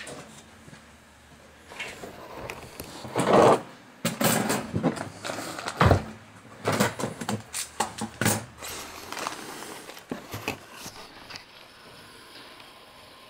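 Irregular knocks, clunks and short scrapes of objects being handled and set down in a workshop, the loudest a sharp knock about six seconds in; the noises stop after about eleven seconds.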